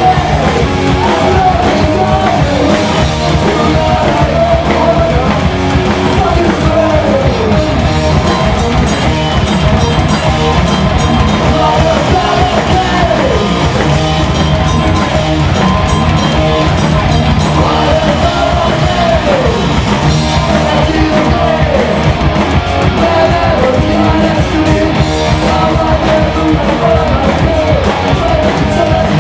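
Heavy metal band playing live, loud and without a break: drums, bass and electric guitars, with a lead line that bends and slides in pitch.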